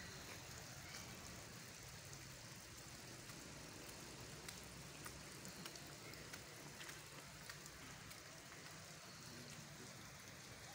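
Near silence: a faint, steady outdoor hush with a few faint ticks scattered through it.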